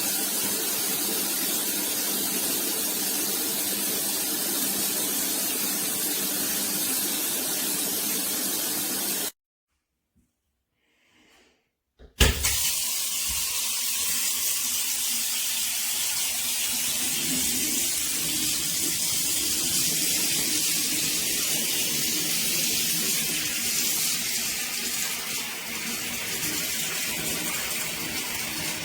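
Water spraying steadily from a shower. It breaks off abruptly for about three seconds about nine seconds in, returns with a sharp knock, then keeps hissing with a brighter, thinner sound.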